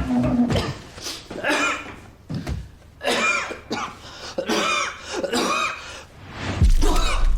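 A man in a long coughing fit: harsh coughs with voice in them, coming in clusters one after another. A low music bed comes in near the end.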